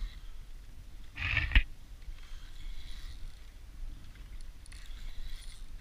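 Spinning reel and rod being handled: a short rushing burst ending in a sharp click about a second and a half in, then faint whirring as the reel is cranked, over a low rumble of wind on the microphone.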